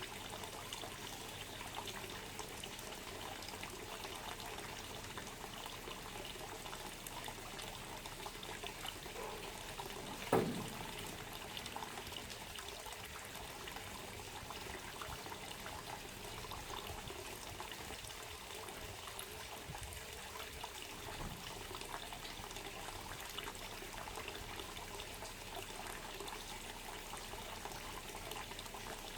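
Water trickling steadily, with one sharp knock about ten seconds in.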